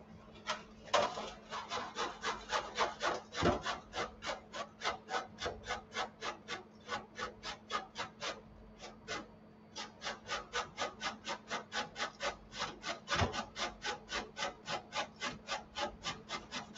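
Zucchini being grated by hand on a grater: a steady run of rubbing strokes, about three or four a second, with a short break about nine seconds in.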